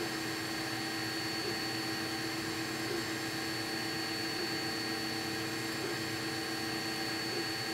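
Qidi Tech X-One 3D printer running: a steady whir with a constant hum and a high whine, the hum hitching briefly about every second and a half.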